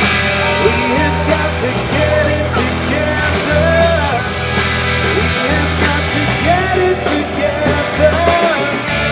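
A live rock band playing electric guitars, bass guitar and drums, with a man singing lead over them.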